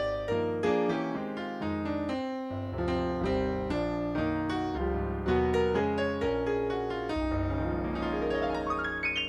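Stage keyboard playing a piano sound: chords over low bass notes, with a rising run of notes near the end.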